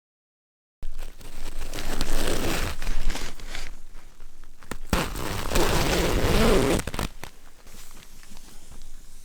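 Close rustling and crinkling with many small crackles. It starts abruptly about a second in, is loudest through the middle, and dies down near the end.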